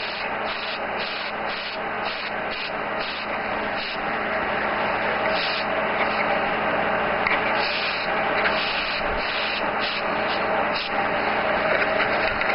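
Steady hiss of an airbrush spraying paint, growing a little louder about a third of the way in, with a low steady hum underneath.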